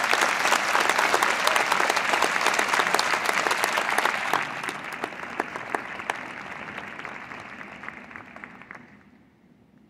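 Audience applauding, a dense patter of many hands clapping, loudest for the first few seconds and then gradually dying away near the end.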